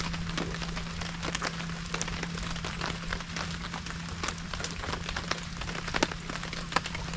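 Steady rain falling, with many individual drops tapping close by and a couple of heavier drips near the end, over a faint steady low hum.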